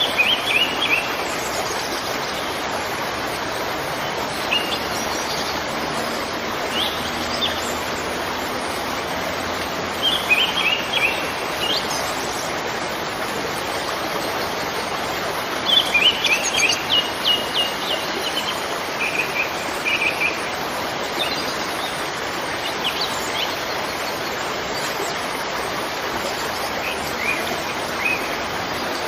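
Steady rush of a waterfall, with small birds chirping in short bouts every few seconds over it, the busiest run of chirps a little past halfway.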